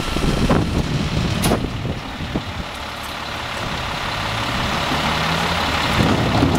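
Refuse truck, an Autocar ACX with a split Heil Multitask SL body, running at a steady idle. Two sharp knocks come in the first two seconds as carts are handled at the cart tipper.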